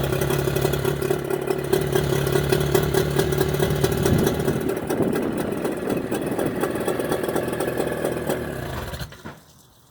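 Mercury 25 hp two-stroke outboard motor running, fitted with Boyesen power reeds and now running very well instead of rough. Its note is steady at first, grows less even about four seconds in, and the sound stops shortly before the end.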